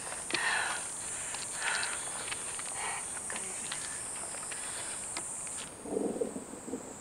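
Steady high-pitched buzz of insects, with a few short rattling scrapes as hands grip a chain-link fence. The buzz cuts off near the end, and low rustling footsteps on grass follow.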